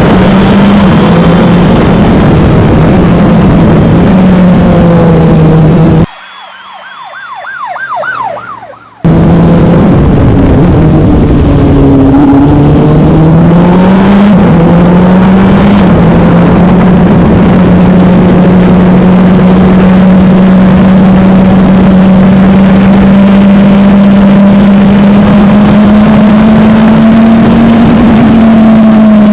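Wolf GB08 sports-prototype race car engine, heard onboard at racing speed, loud, its pitch stepping down and up with gear changes. About six seconds in the engine sound drops away to something much quieter for about three seconds, then returns. From about halfway it holds a long, nearly steady high note that slowly rises, as at sustained full throttle.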